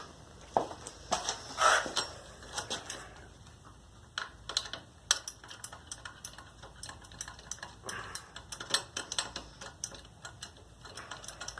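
Ratchet wrench clicking in short irregular runs as an exhaust bolt is run in by hand, with a few louder metallic knocks in the first couple of seconds.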